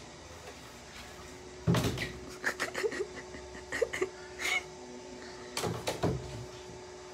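A fluffy kitten pawing and bumping against a wooden door: a sharp knock about two seconds in, a run of short clicks and rattles, and another cluster of knocks near six seconds.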